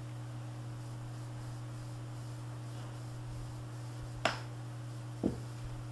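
Steady low hum, with two short sharp clicks about a second apart near the end.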